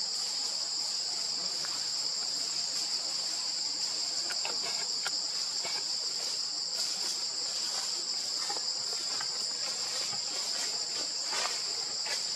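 A steady, high insect drone from a chorus of insects, unbroken and even in level, with faint scattered clicks and rustles beneath it.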